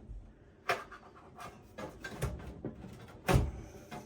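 Irregular light knocks and clicks of hands working on a desktop PC's power supply and case, about seven taps with the loudest knock near the end.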